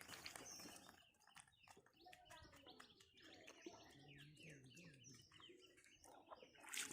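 Faint bird chirping: many short, high calls in quick succession.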